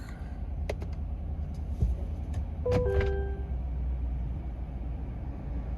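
2022 Chevrolet Silverado running with a steady low hum, with a couple of light clicks, and about three seconds in a two-note falling dashboard chime.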